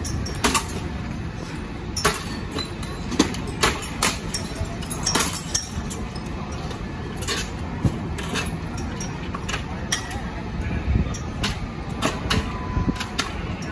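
Fireground noise: a steady low rumble of idling fire apparatus, broken by many irregular sharp knocks and clinks.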